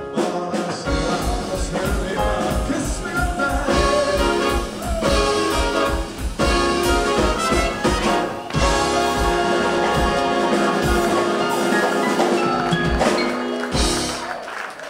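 Live jazz band playing an up-tempo tune, with trumpet and saxophone over electric guitar, double bass and drums keeping a steady beat of about two a second. Near the end a final hit rings out and the band drops away.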